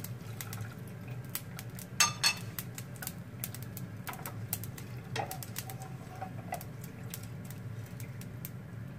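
Hot frying oil crackling in scattered sharp pops as deep-fried glass noodles are scooped out with a metal slotted skimmer, over a steady low hum. About two seconds in come two louder clinks of the skimmer against the pot.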